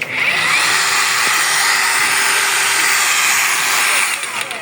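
Makita cordless angle grinder switched on and running free with no load, a steady high whir. About four seconds in it is switched off and winds down.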